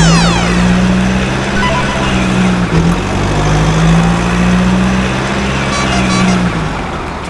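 Vehicle engine sound effect, a steady low drone, over background music, with a quick falling whistle right at the start.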